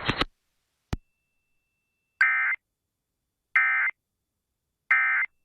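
Three short, buzzy digital data bursts about a second apart, from NOAA Weather Radio: the SAME end-of-message tones that close an Emergency Alert System message. A single click comes just before them, about a second in.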